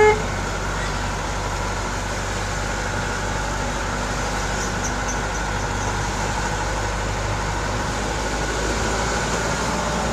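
Bus engine running steadily, with an even hum and noise that hold at one level.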